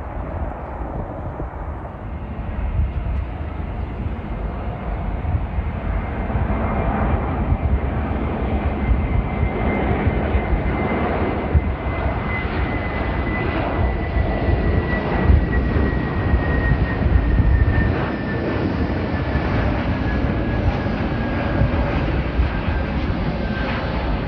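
An airliner's jet engines passing: a dense steady rumble that builds over the first few seconds, with a high whine that slowly falls in pitch.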